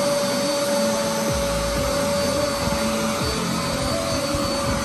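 Vacuum motor running with a steady high whine and a rushing hiss of suction, its nozzle dragged back and forth across a carpeted floor mat.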